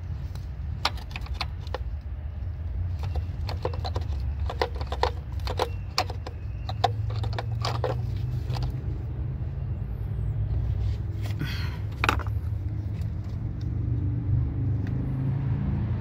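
Light metallic clicks and rattles, many in quick succession for the first half, as a Valvetronic eccentric-shaft motor is worked loose and pulled out of the valve cover by hand. A short scraping swish comes about eleven seconds in. A steady low rumble runs underneath.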